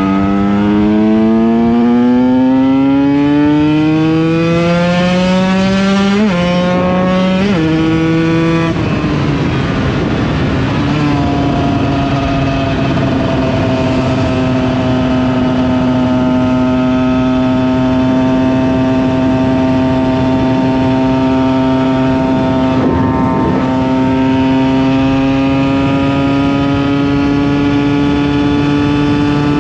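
KTM EXC 125 two-stroke single-cylinder engine accelerating, its pitch climbing, then three quick upshifts between about six and nine seconds in. After that it holds a steady cruising speed.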